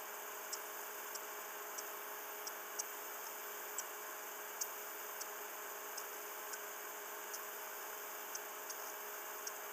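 Quiet room tone: a steady hiss with a faint hum, with soft irregular ticks every half second to a second or so.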